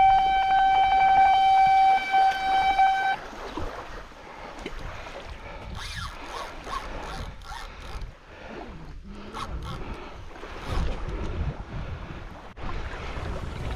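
Electronic carp bite alarm sounding one loud, continuous, high rapid-fire tone, signalling a run: a fish is pulling line off the rod. It cuts off about three seconds in, leaving wind noise and scattered knocks.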